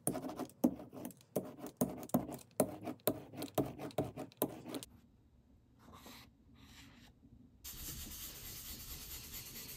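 Rubber brayer rolled back and forth over lithography ink on aluminium foil, a quick run of tacky crackling strokes about three a second. After a short pause, a steady, even rubbing as paper laid over the inked foil is burnished by hand to take the print.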